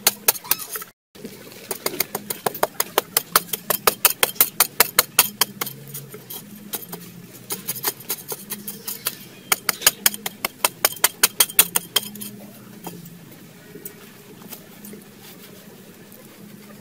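Long-handled metal digging blade chopping into hard, stony soil in quick strikes, several a second, with a short break about a second in; the strikes stop about twelve seconds in.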